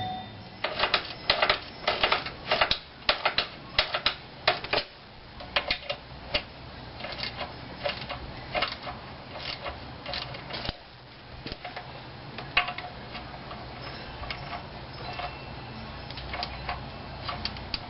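3/8-inch socket ratchet clicking in quick, irregular runs as it works a 15 mm hub-to-spindle bolt. The clicks come thickly for the first ten seconds or so, then in shorter, sparser runs.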